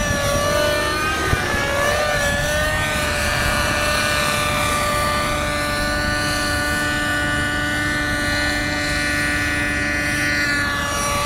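Radio-controlled aerobatic model helicopter in flight: a steady, high-pitched engine-and-rotor whine that wavers up and down in pitch for the first few seconds as it manoeuvres, then holds steady.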